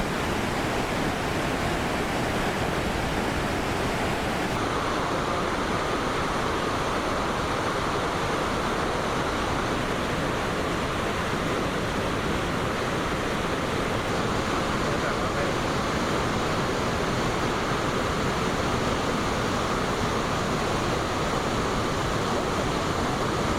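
Steady rushing roar of the Iguazú Falls at the Devil's Throat, a dense unbroken wash of falling water. About four seconds in the hiss at the top thins a little and the roar carries on.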